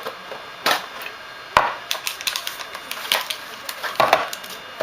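Trading cards and their packaging being handled: scattered sharp clicks and short rustles of card stock and wrapping, with one crisp click about a second and a half in.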